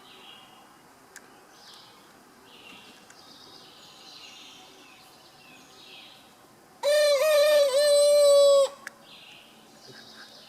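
A rooster crows once, loud and about two seconds long, starting about seven seconds in. Faint short high chirps from other birds come on and off around it.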